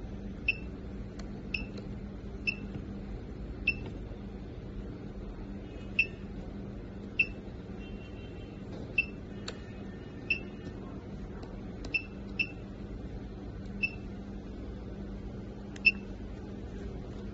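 Short, high touchscreen beeps from a handheld thermal inkjet printer as its menu keys are tapped, about a dozen at irregular intervals, over a steady low hum.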